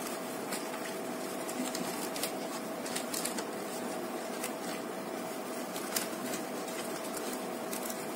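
Small crackles and clicks of stiff jackfruit leaves being handled and pierced with a coconut-leaf midrib as they are pinned into a cup, scattered irregularly over a steady hum.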